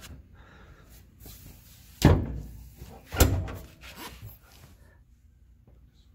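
Two heavy thuds about a second apart: a car's hood being lowered and pressed down onto the engine bay to check its clearance, with lighter knocks and handling noise around them.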